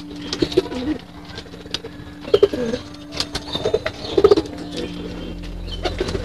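Domestic pigeons cooing, several low throaty coos a few seconds apart, with scattered sharp clicks as the flock pecks at grain on the loft floor.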